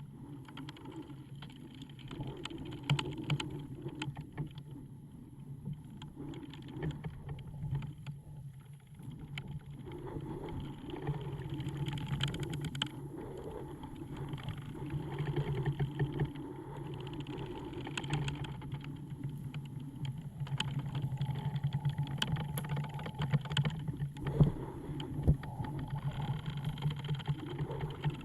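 Wooden ship's timbers creaking and ticking as the wood works and contracts in the wind, with scattered sharp creaks over a steady low hum.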